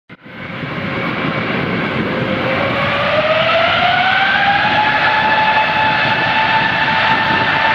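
Airplane engine noise: a steady roar that comes in suddenly and swells within the first second, with a whine that rises in pitch a few seconds in and then holds steady.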